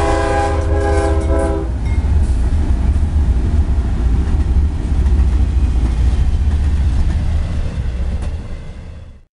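A CSX freight train's locomotive air horn sounds a chord that cuts off about a second and a half in. After it comes the steady low rumble of the long intermodal train running past, which fades near the end and stops abruptly.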